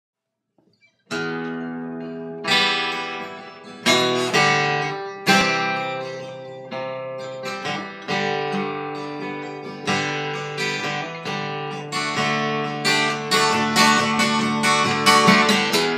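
Washburn WMJ11 acoustic guitar playing a strummed instrumental intro: single chords struck and left to ring, starting about a second in, the strumming growing faster and denser over the last few seconds.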